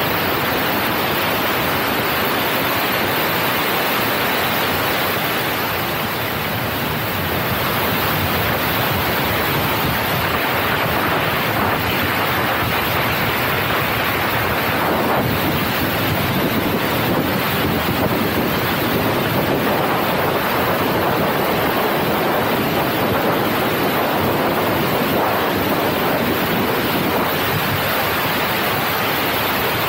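Steady rush of wind over the microphone of a camera riding on the side of a moving passenger train.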